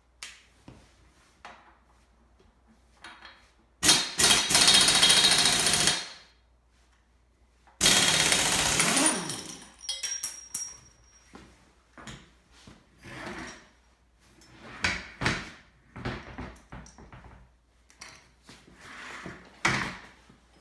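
A power tool run twice in bursts of about two seconds, the second one winding down as it stops, while working the front crankshaft pulley of a Volkswagen 1600 dual-port engine loose. Then scattered metal clinks and knocks of tools and parts.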